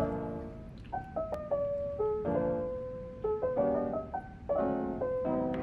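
Background piano music: single melody notes with struck chords every second or so.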